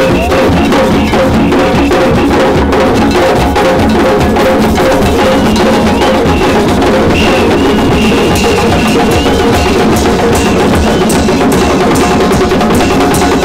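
Percussion-heavy music with drums keeping a steady, dense beat. A few held tones run under it, and a higher wavering tone rises over it through the middle.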